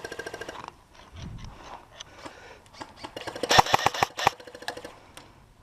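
Airsoft guns firing rapid automatic bursts: a run of quick clicks that stops in the first second, then a louder burst about three and a half seconds in.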